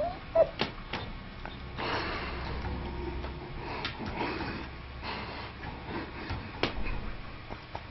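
Kitten playing with a small plastic ball on a carpet: scattered light knocks and soft scuffling, with a couple of short squeaks right at the start.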